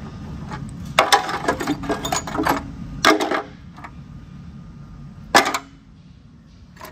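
Broken metal engine parts clinking and rattling as a hand digs through the debris in an oil pan: the shattered connecting rod and piston pieces of a blown engine. A stretch of rattling about a second in, a shorter one around three seconds, and a single sharper clank a little after five seconds.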